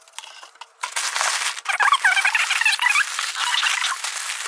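Packing paper and tissue paper rustling and crinkling as hands dig through a cardboard box, starting about a second in, with a run of short high squeaks in the middle.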